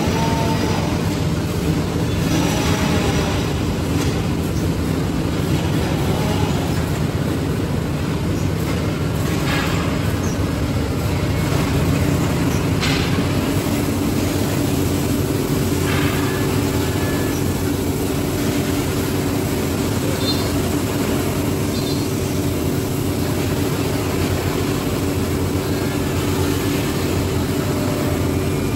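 Woodmaster Master-T4 five-axis CNC machining centre running, its spindle and router bit carving wooden chair seats: a steady, loud machine drone with a few short cutting noises, and a steady hum that strengthens about halfway through.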